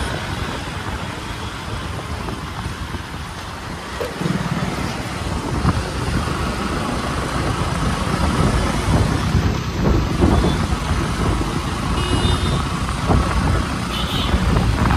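Wind rumbling on the microphone and road noise while riding on a motorbike through city traffic, heavier from about four seconds in. Two brief high-pitched beeps sound in the last few seconds.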